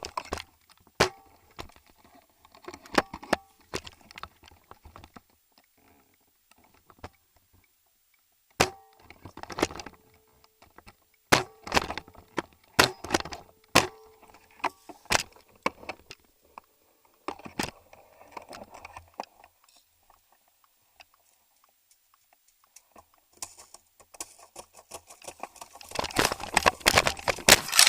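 Airsoft guns firing scattered single shots as sharp, irregular cracks and clicks with quiet gaps between them. A dense, loud flurry of cracks comes near the end.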